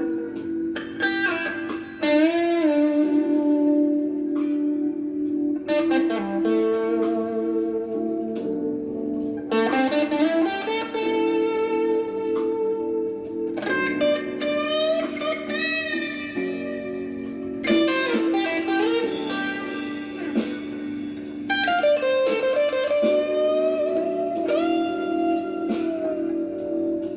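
Gibson Les Paul Traditional electric guitar playing a blues, with lead lines full of string bends and vibrato over sustained lower notes.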